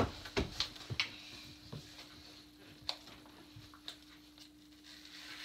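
Scattered light clicks and taps of cardboard packing pieces being handled and pulled off a boxed animatronic spider prop, over a faint steady hum.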